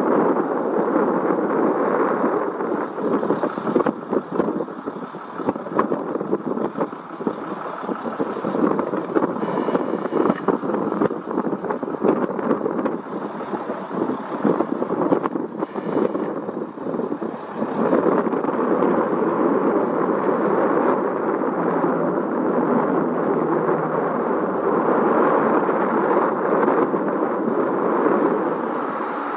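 Aircraft engine noise: a continuous rushing sound that gets louder and steadier about eighteen seconds in.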